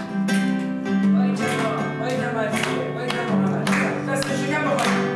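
Acoustic guitar music, chords strummed in a steady rhythm over a held low note.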